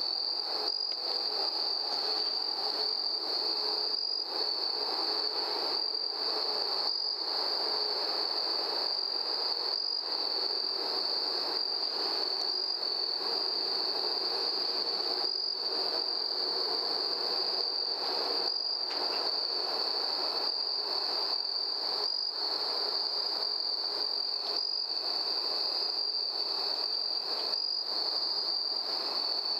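Steady, high-pitched chorus of night insects, crickets, running without a break, over a softer even rushing noise.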